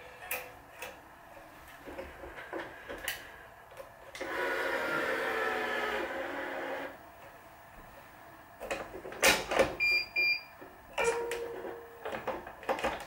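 Wise 2086 electronic tension head's motor pulling a racquet string to tension, a steady whir lasting about three seconds. About four seconds later come two short beeps from the head, among clicks and knocks from the string clamps and string being handled.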